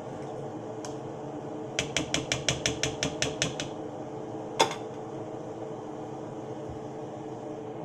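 A spoon or spatula clacking against the side of a mixing bowl while a thick dip is stirred by hand: a quick even run of about a dozen strikes, about six a second, then one sharper knock. A steady low hum runs underneath.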